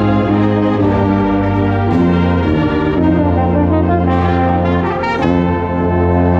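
Wind band playing sustained brass chords over long-held low brass notes, the harmony shifting about two seconds in and again about five seconds in.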